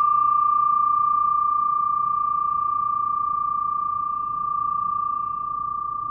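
Brass flat bell (bilo) with an engraved yin-yang ringing on in one clear high tone with fainter upper overtones, slowly fading, with a slight swell about four and a half seconds in.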